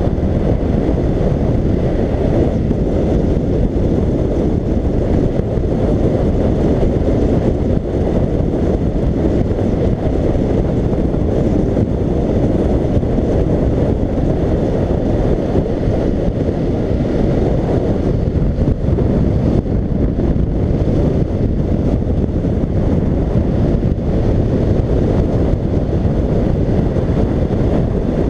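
Steady wind noise buffeting a helmet-mounted camera's microphone on a BMW F 750 GS motorcycle cruising at about 75–80 km/h, with the bike's engine drone mixed in underneath. The sound is even throughout, heaviest in the low end.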